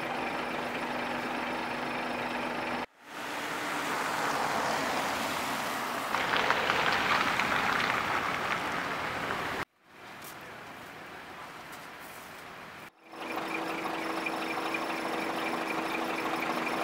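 Engines of parked fire engines idling steadily, heard across several short clips joined by abrupt cuts. A louder crackling noise runs over the idle for a few seconds in the middle.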